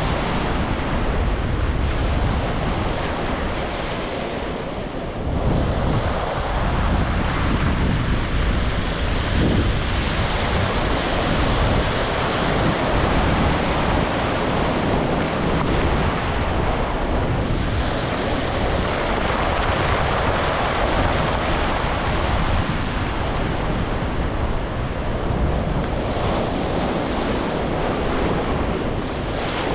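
Sea surf breaking and washing on a beach, a continuous rush that swells and eases every several seconds, with wind rumbling on the microphone underneath.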